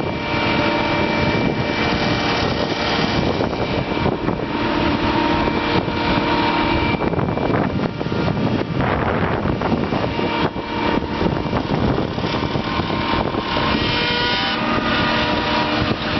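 Harvest machinery engine running steadily at working speed, a continuous even drone with mechanical noise, starting abruptly at a cut.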